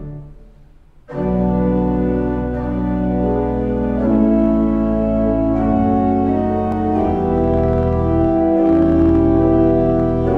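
Church organ playing: a held chord dies away into the room's reverberation, then about a second in full sustained chords enter and move slowly from one chord to the next.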